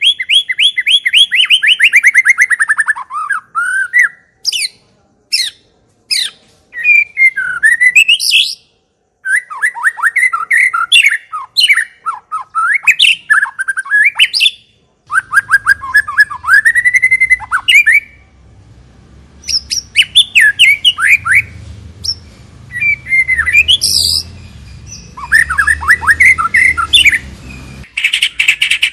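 White-rumped shama (murai batu) singing a loud, varied song. It opens with a fast trill of repeated notes falling in pitch, then runs through whistled and chattering phrases broken by short pauses. A low rumble runs underneath through the second half.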